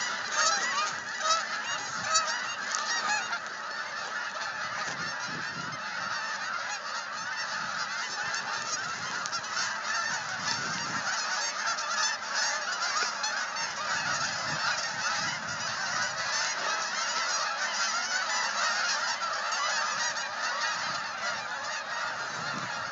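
A huge flock of geese calling as it flies over, a dense, unbroken chorus of many overlapping honks.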